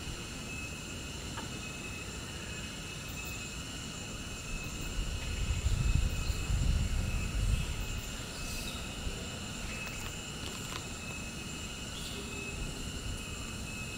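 Outdoor ambience: a steady high insect drone, with a low rumble that swells about five seconds in and fades about three seconds later.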